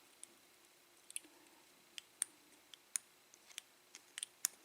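Faint, irregular light metallic clicks and ticks, about a dozen, as small pins and springs are picked out of a six-pin Ilco lock cylinder with a hand tool.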